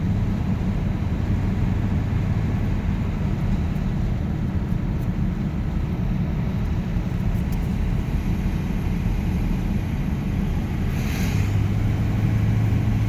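Car driving along: steady low engine and road rumble heard inside the cabin. About eleven seconds in there is a brief hiss, and a steadier, deeper hum comes in.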